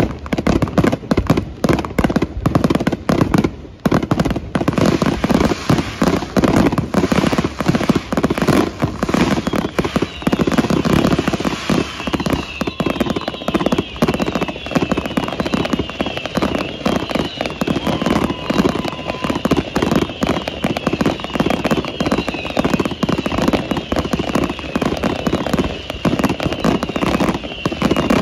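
Grand-finale fireworks barrage: a rapid, continuous string of bangs and crackling shell bursts. From about ten seconds in it carries repeated high whistling glides.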